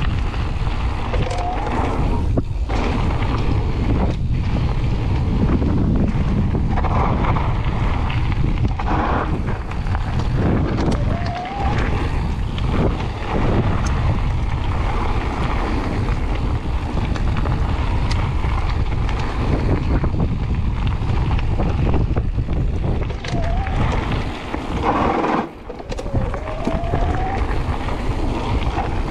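Wind buffeting the camera microphone, mixed with the rumble of mountain-bike tyres rolling over loose gravel on a fast descent. A few short rising whines break through now and then.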